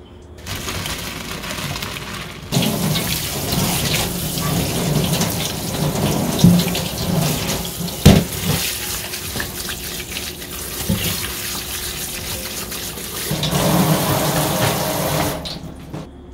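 Kitchen tap running hard onto boiled noodles in a metal colander in a stainless-steel sink as they are rinsed by hand, with a few sharp knocks, the loudest about halfway through; the water stops near the end.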